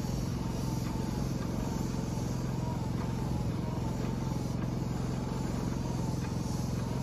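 Small portable generator engine running steadily under load, powering an airless spray rig.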